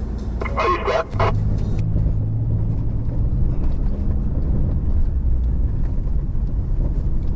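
Truck engine running steadily while driving, heard from inside the cab as a low rumble; its engine note holds a steady pitch for a couple of seconds starting about a second in.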